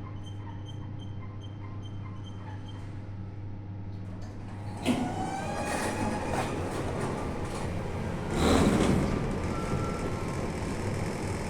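Pillar freight elevator: a steady low hum with faint, rapidly repeated short beeps, then a sudden clunk about five seconds in, followed by squealing and rattling that is loudest a little past the middle.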